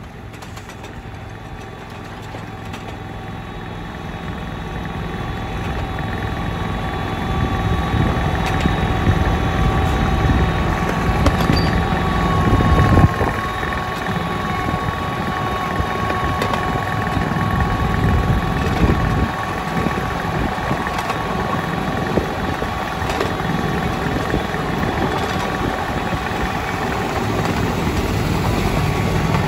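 Petrol engine of a 7.25-inch gauge miniature T Class locomotive running under load as the train pulls away. It grows louder over the first several seconds and then runs steadily with a high steady whine and occasional clicks, and one louder knock about thirteen seconds in.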